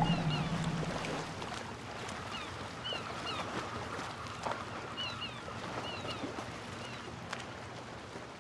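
Outdoor ambience: a steady noisy wash with short high chirps recurring in pairs. A low humming tone fades out in the first second.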